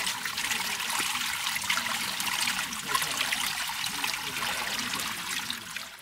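Running water, a steady trickling and splashing rush that cuts off suddenly near the end.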